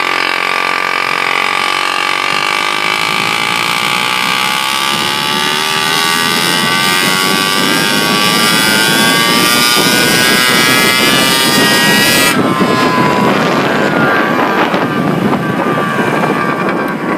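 1985 Honda Spree's two-stroke scooter engine, fitted with a 48 mm big bore kit and an aftermarket expansion pipe and still being broken in, pulls the scooter up to speed under throttle with its note climbing steadily as wind rush on the microphone builds. About twelve seconds in the throttle is shut, the engine note drops away, and wind rush is left as the scooter coasts.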